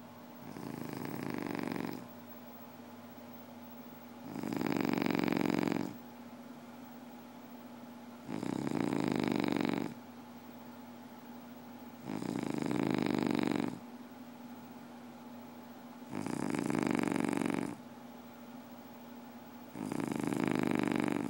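A sleeper snoring: six long snores, each about a second and a half, coming steadily about every four seconds, over a faint steady hum.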